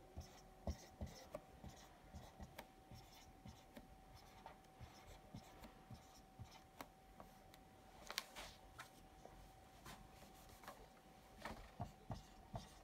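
Marker writing a row of numbers on a white board: faint short scratches and taps of the tip, with a small cluster about eight seconds in, over a faint steady hum.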